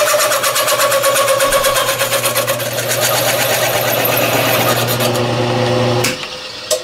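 A single-point hole cutter, a ground-down broken center drill in a boring head, spins through thin sheet steel with heavy chatter: a loud, fast, rhythmic rattling screech over the machine's steady motor hum. The chatter is a sign of the cutter cutting a wider groove than needed, which the maker thinks a slimmer tool post would reduce. The cutting and the hum stop about six seconds in, followed by a single click.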